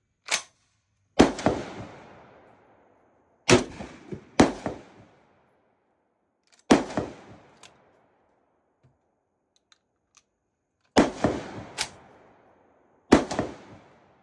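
Tokarev TBP-12 semi-automatic 12-gauge bullpup shotgun firing about seven shots at uneven spacing, some in quick pairs under a second apart, each echoing off as it dies away. The shotgun is new and dry and is being broken in, a stage when it is prone to fail to cycle.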